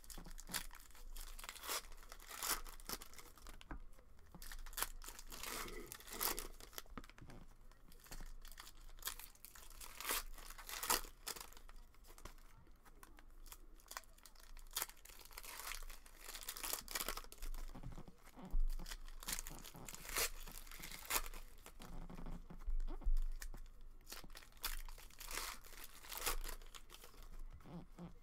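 Trading-card packs and boxes being torn open and their wrappers crinkled: a continuous run of irregular ripping and crinkling noises.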